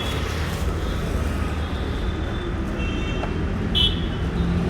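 Busy roadside street ambience: a steady rumble of passing traffic with faint background voices, and a brief high-pitched tone about four seconds in.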